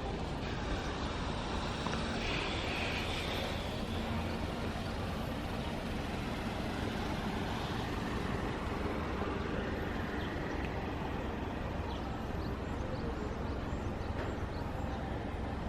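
Steady outdoor background noise: a low rumble with an even hiss over it, with no single event standing out.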